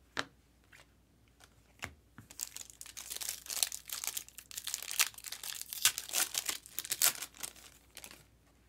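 Foil wrapper of a Panini Select trading card pack being torn open and crinkled, about six seconds of dense crackling after a couple of light taps.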